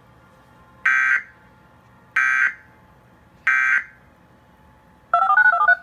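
Three short bursts of Emergency Alert System end-of-message data tones, the signal that closes an EAS alert, a little over a second apart. About five seconds in comes a quick run of stepping two-pitch beeps, like touch-tone dialling.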